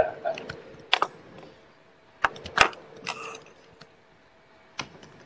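About half a dozen sharp clicks and knocks at irregular intervals, with a brief rustle about three seconds in, over a faint steady hum.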